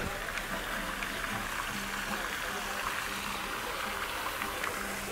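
Garden fountain jet splashing into its basin: a steady hiss of falling water.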